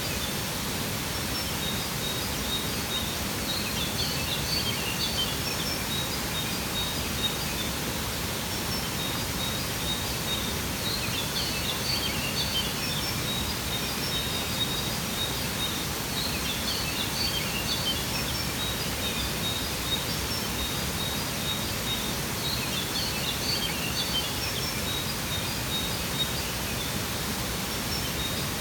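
Steady rush of a waterfall, with songbirds chirping in short bursts that come back every five or six seconds over the water.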